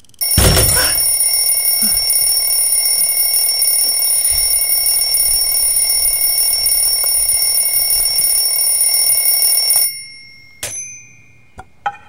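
Alarm clock ringing loudly and steadily, then cutting off suddenly about ten seconds in, followed by a few sharp clicks.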